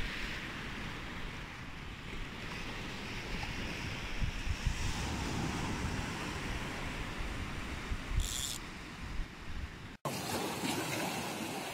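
Surf washing onto a sandy beach, with wind gusting on the microphone in low rumbles.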